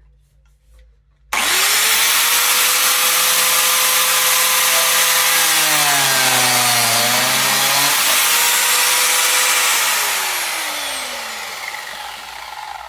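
Biscuit jointer switched on, its motor running at speed, then slowing under load for a couple of seconds as the blade plunges into the wood to cut a slot. After that it is switched off and winds down with a falling whine.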